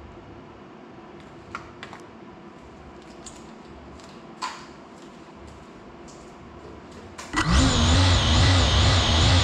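GEPRC Cinelog 35 cinewhoop's brushless motors and propellers spinning up suddenly about seven seconds in, then running loud and steady with a wavering whine while the drone is still on the floor. Before that there is only quiet room tone with a few light clicks.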